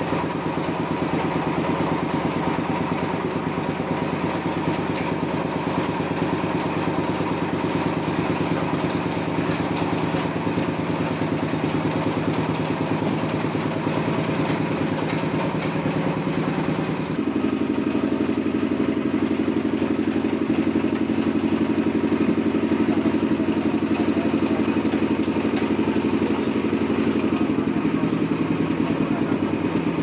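Engine of a sawmill running steadily with a fast, even beat. About 17 seconds in, its note steps up and it gets a little louder.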